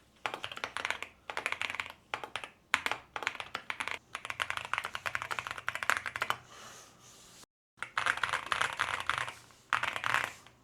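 Typing on a QK65 mechanical keyboard with an FR4 plate and heavy Durock Mocha tactile switches: fast bursts of keystrokes with a marbly clack, with a short pause just past the middle.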